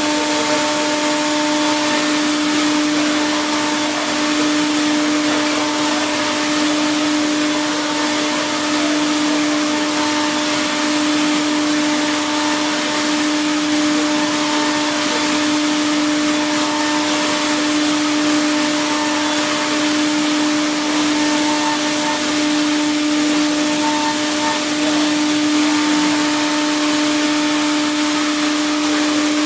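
Hurco VMX42HSi vertical machining center roughing aluminum with a Millstar milling cutter: a steady cutting tone with a strong hum and a higher whine over a loud hiss, unchanging as the cut goes on.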